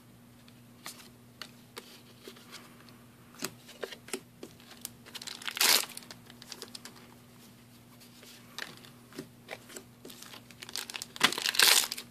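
Foil trading-card booster-pack wrappers crinkling and cards being handled, as scattered short rustles and clicks. The loudest crinkling comes near the end, as a pack is pulled from the box. A faint steady hum runs underneath.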